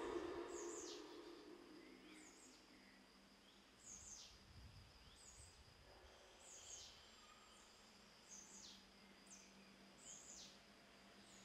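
Quiet woodland ambience with birds calling: short high chirps that sweep downward, repeating every second or so over a thin, steady high tone. A lower, steady-pitched sound fades away over the first two seconds.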